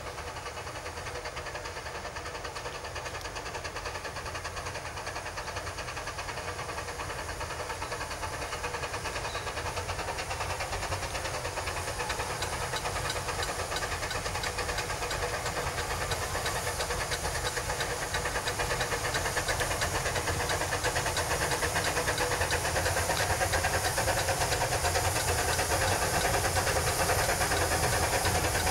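Climax geared steam locomotive working its train, with a rapid, even chuffing exhaust and hiss of steam. It grows steadily louder as it approaches.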